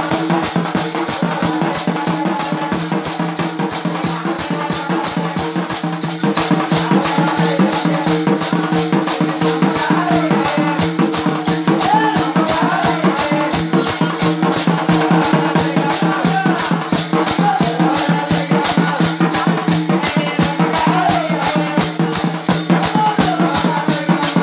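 Live folk music for a village goddess ritual: brass hand cymbals clashing in a fast, even rhythm with a drum, over a steady droning tone and a wavering melody line.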